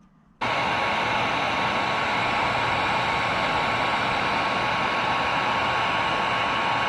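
Electric heat gun switched on about half a second in and blowing steadily, a loud even rush of air with a faint high whine, shrinking heat-shrink tubing over a soldered wire splice.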